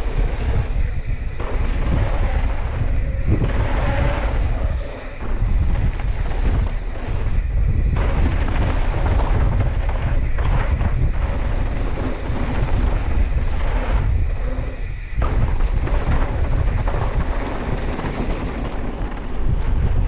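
Wind rushing over a moving camera's microphone at riding speed, over the rumble of mountain-bike tyres on a hard-packed dirt trail, with short lulls about five and fifteen seconds in.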